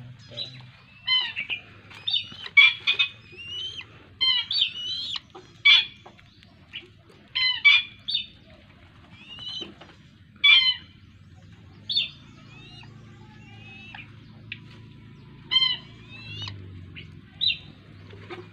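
Downy raptor nestling giving shrill, repeated begging calls while being hand-fed meat. The calls come in quick runs of several through the first half, then singly every few seconds.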